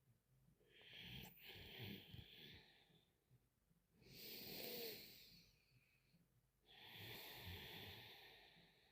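A sleeping woman's faint, heavy breathing with a soft snore: three long breaths, each about two seconds, coming roughly every three seconds, with a low fluttering rasp in the first and last.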